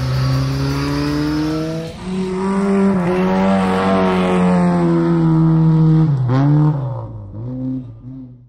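Cupra Leon TCR racing car's turbocharged four-cylinder engine running hard at high revs. Its pitch climbs, steps up about two seconds in, holds high, dips and recovers briefly around six seconds in, then fades away and cuts off.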